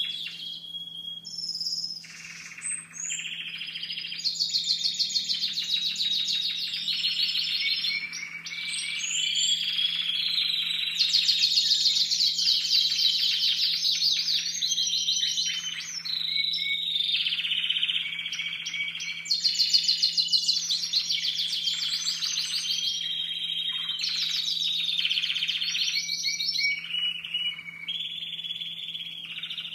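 A group of young Timbrado Español canaries singing continuously, one rapid trill or rolling phrase after another, each phrase changing after a second or two. They are birds in contest training whose repertoire is not yet fully formed.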